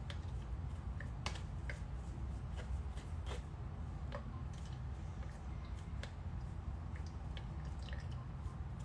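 Scattered light clicks and taps from handling kitchen things, over a steady low hum.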